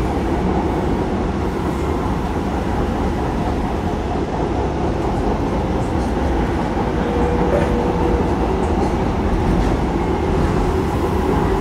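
Docklands Light Railway train running, heard from inside the carriage: a steady rumble of wheels and motors on the track.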